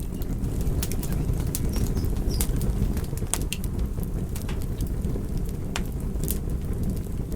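Wood fire in a fireplace crackling and popping: irregular sharp pops and snaps, several a second at times, over a low steady rumble of burning logs.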